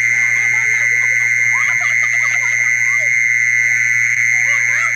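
Recorded jisorn cicada call played through a portable party speaker as a lure: a steady shrill buzz, with people's voices and laughter faintly underneath.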